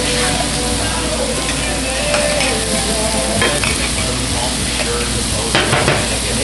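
Fresh-ground beef burger patties sizzling steadily on a hot Blackstone flat-top griddle, with a few sharp clicks near the end.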